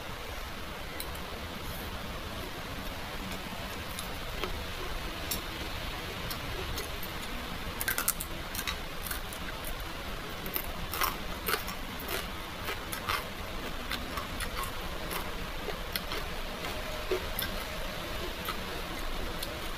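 Irregular light clicks and clinks of small hard objects over a steady hiss, with a quick cluster of clicks about eight seconds in.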